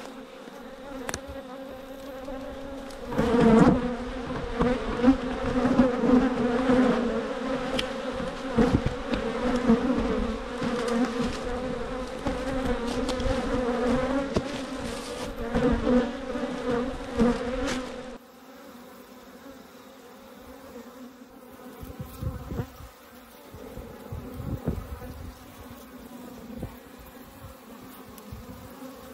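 Honeybees buzzing loudly around an opened hive, a steady buzz with many short knocks and clicks as the hive tool works the lid and box. About two-thirds of the way through the sound drops suddenly to a fainter steady buzz.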